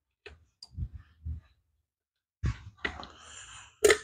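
Handling of a handheld multimeter and its test leads: a few soft knocks, then sharper knocks and a brief rustle of the cords, with the loudest sharp knock near the end.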